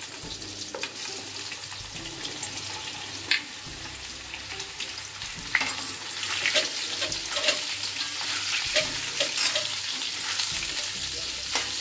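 Raw mango pieces sizzling in hot oil with a whole-spice tempering in a steel kadhai. From about halfway a metal spatula stirs them, scraping and clinking against the pan.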